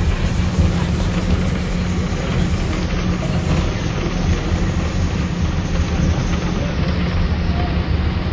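Steady low rumble of a narrow-gauge passenger carriage running along the track, heard from its open side.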